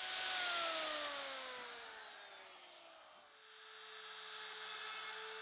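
Bosch handheld router spinning down after being switched off, its whine falling steadily in pitch over about three seconds. A router then runs at a steady speed from about three seconds in, a quieter even hum.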